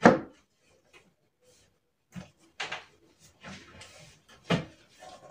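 Knocks and clunks of the panels of a flat-pack IKEA cabinet being fitted together by hand: a sharp knock at the start, a few separate knocks from about two seconds in, and a louder one near the end.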